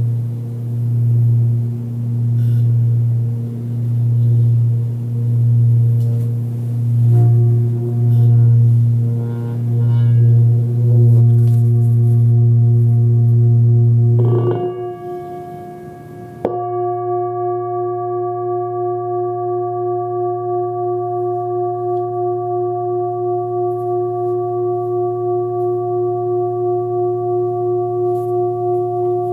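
A 28 cm hand-forged Sun Moon singing bowl, tuned to 117 Hz (A), rings with a deep hum that swells and fades about once a second. About fourteen seconds in the ringing dies down. Some two seconds later a new stroke starts suddenly and rings on, brighter in its upper overtones, with a quicker shimmer.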